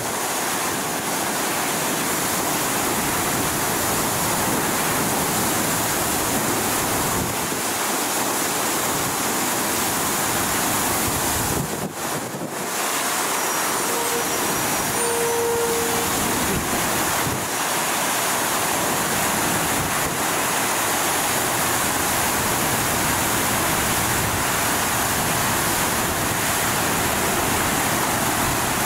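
Water gushing at high pressure from a sheared fire hydrant: a steady rush with no break, apart from a brief dip about halfway through.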